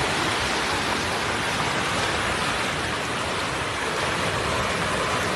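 Steady, even rush of water from a heavy storm downpour, with no breaks or single events.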